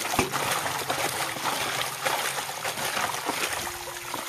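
Water pouring from a pipe spout into a plastic tub of water, splashing steadily while hands rub and swish leafy greens in it.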